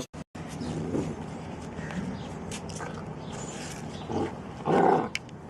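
An animal's short, loud call near the end, over a low background hiss.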